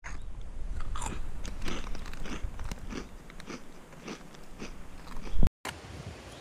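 Frazzles bacon-flavoured corn crisps being bitten and chewed close to the microphone: a run of irregular crisp crunches, louder in the first half, ending in a loud burst and a brief cut in the sound near the end.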